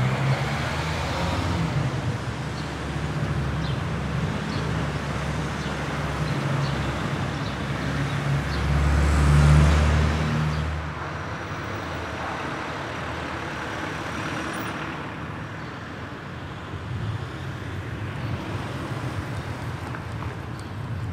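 Town-street traffic: car engines running and passing, with a louder low rumble peaking about nine to ten seconds in before the noise settles lower.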